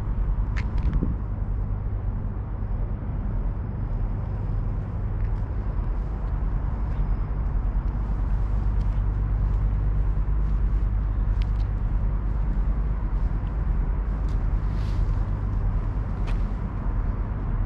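Steady low rumble of road traffic, with a few faint scattered clicks.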